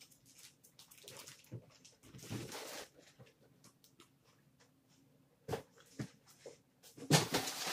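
Close-miked chewing and mouth sounds of someone eating a breaded mozzarella stick: soft wet clicks and smacks, with a louder noisy rush about two seconds in and another, louder one near the end.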